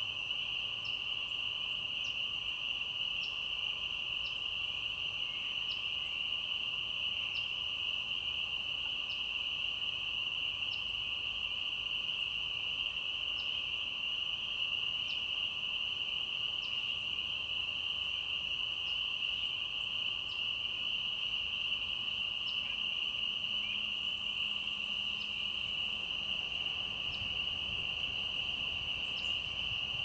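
A steady, unbroken high chorus of insects, with faint short high chips every second or two.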